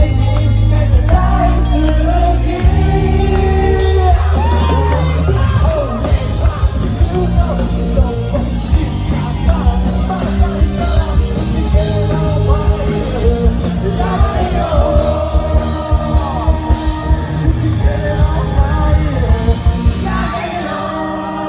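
Live rock band playing, a singer's voice singing and shouting over steady drum beats and bass.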